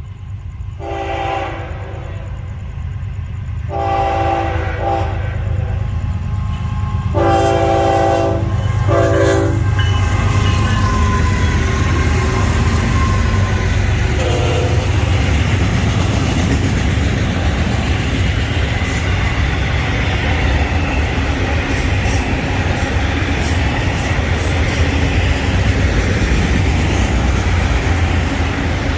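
Florida East Coast Railway train's horn sounding four blasts in the first ten seconds, the last two close together, then a brief toot about fourteen seconds in. Under them the train's rumble builds and then runs loud and steady as the train passes.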